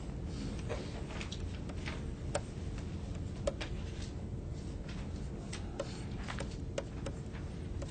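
Tablet pen tapping and scratching on a tablet PC screen while drawing: a dozen or so irregularly spaced light ticks over a faint steady electrical hum.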